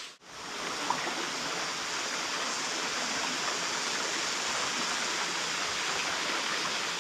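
Steady rush of stream water flowing over and between natural rock pools.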